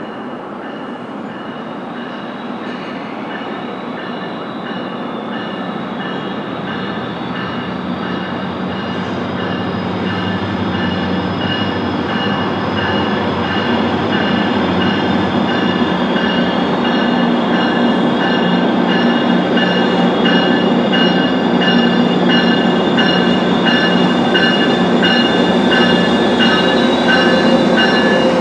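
Metrolink commuter train approaching the station, its rumble growing steadily louder as it nears. Over it there is an even ringing of about two strokes a second, and a thin high squeal from the wheels on the curve.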